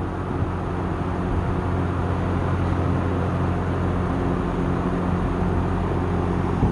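Lakewood Deluxe window box fan with a GE motor running steadily on its low speed: a steady motor hum under the rush of air from the blades.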